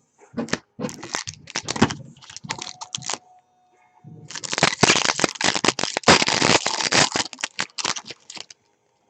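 Trading card pack wrapper being torn open and crinkled in hand, a sharp crackling that comes in two bouts, with a short pause around three seconds in and the second bout louder and longer.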